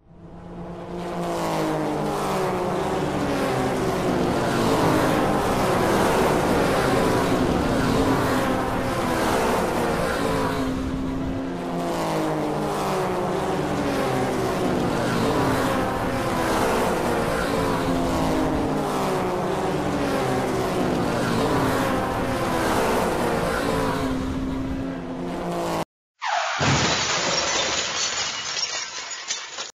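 Race car engine running hard, its pitch rising again and again in repeated runs. The engine sound stops abruptly near the end and a crash sound follows.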